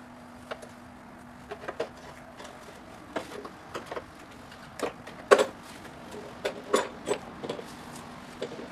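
Irregular metal clinks and knocks as a steel bolt and bracket are worked into position inside a Pontiac Fiero's rear frame rail. There are about a dozen short knocks, the loudest a little past halfway.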